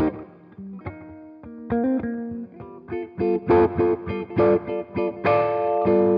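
1980 Greco EG-500 Les Paul-style electric guitar with Maxon humbuckers, played through an amplifier: single picked notes, then louder strummed chords about halfway through and again near the end.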